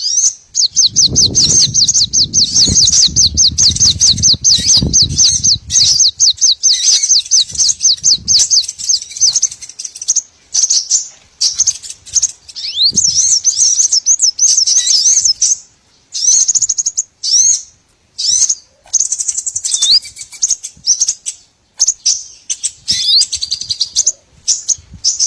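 Recorded small-bird calls used as a lure. A fast, high-pitched run of repeated chirps lasts about six seconds, with a low rumble underneath. Then come scattered high chirps and short swooping whistles.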